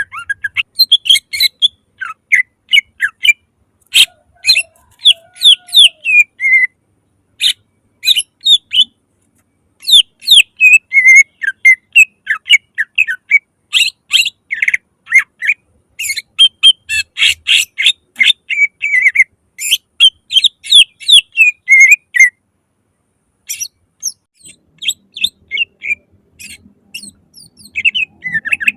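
Cucak ijo (greater green leafbird) singing loudly and continuously: rapid runs of sharp, downward-sweeping whistled notes, broken by a few short pauses.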